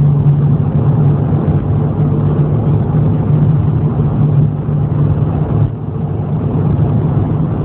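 Audi TT 2.0 TFSI's turbocharged four-cylinder engine droning steadily at road speed, heard from inside the cabin together with tyre and road noise. The level dips briefly about six seconds in.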